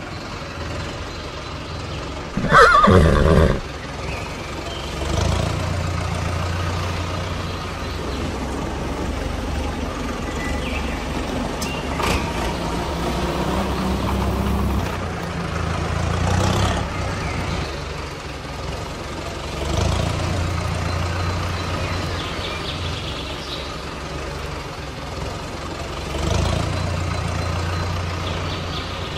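A horse whinnies once, loudly, about three seconds in. After it, a steady low engine-like hum from the remote-control toy tractors runs on, swelling now and then.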